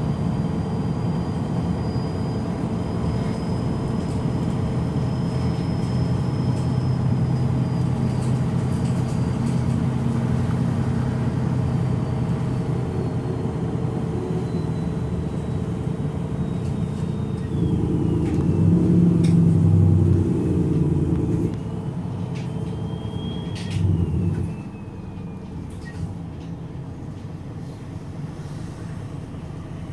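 MAN NG313 articulated city bus's horizontal D2866 six-cylinder turbo diesel idling at a stop, a steady low rumble. It grows louder for a few seconds a little over halfway through, there is a thump a few seconds later, and then it settles to a lower, quieter run.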